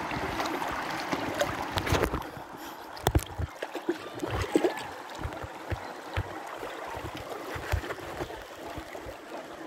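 Shallow river rapids rushing and splashing around a tube drifting downstream, louder for the first two seconds and then calmer, with scattered short low thumps.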